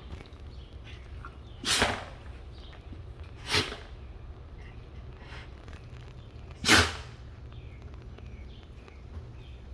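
Akita puppy sneezing three times, short sharp sneezes a couple of seconds apart, the third the loudest.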